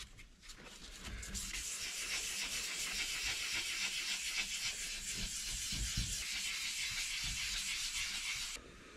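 Fine-grit sandpaper on a foam pad rubbed by hand over a clear-coated motorcycle fender, a steady scratchy hiss as the clear coat is levelled. It starts about a second in and stops abruptly near the end.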